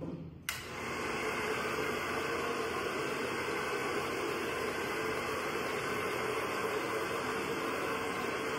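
AGARO HD1120 2000-watt hair dryer switched on about half a second in, then its motor and fan running steadily, blowing air.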